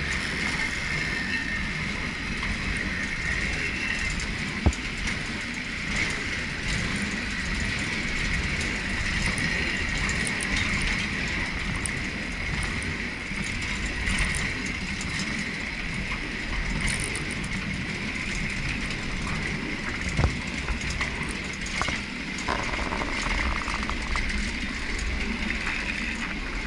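Water-balanced cliff railway car rolling down its steep track: a steady running rumble and rattle of the wheels on the rails with a high-pitched hum, broken by a few sharp clicks.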